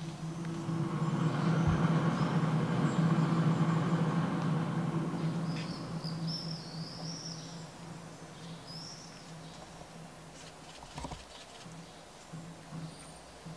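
A motor vehicle's steady engine hum swells over the first few seconds and then fades, with birds chirping briefly in the middle. A single low knock comes near the end.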